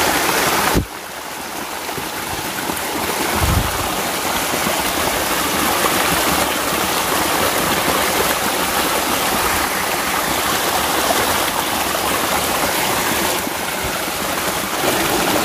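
Stream water rushing steadily. The rush dips about a second in and builds back, and there is a single low thump about three and a half seconds in.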